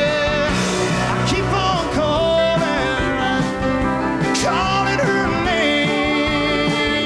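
Live country band playing an instrumental break: piano, electric guitars and drums, with a lead line that bends and slides between notes.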